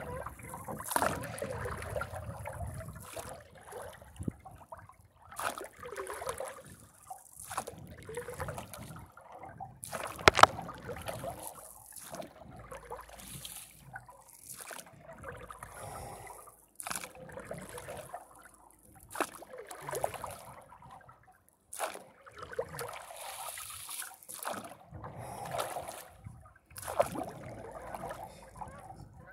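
A paddle stroking through lake water beside a paddleboard, one stroke every two seconds or so, with water splashing and trickling between strokes.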